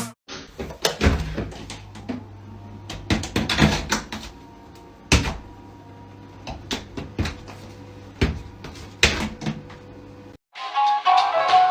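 Irregular knocks and clatters, a few of them loud, over a steady low hum.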